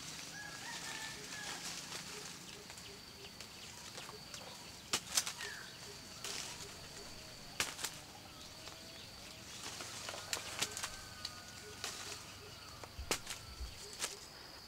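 Sapodilla leaves and branches rustling as fruits are pulled and snapped off by hand, with sharp crackling snaps several times. A steady high insect drone runs underneath.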